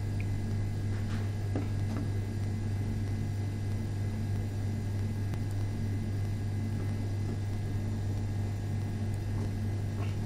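A steady low hum, unchanging throughout, with a few faint clicks about a second or two in and again near the end.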